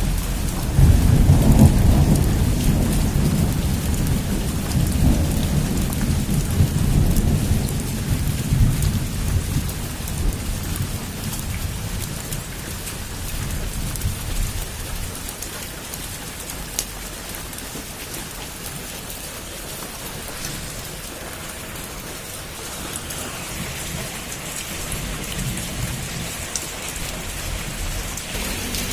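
Heavy rain drumming on a rooftop as a steady hiss. A long roll of thunder starts about a second in and rumbles away over the next eight seconds or so.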